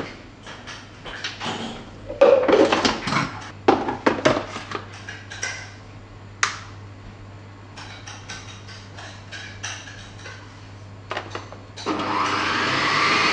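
Kitchen knocks and clatter, then about twelve seconds in a Pacojet ice-cream machine starts up and runs with a loud steady noise, its blade working through a frozen beaker of liquorice ice-cream base.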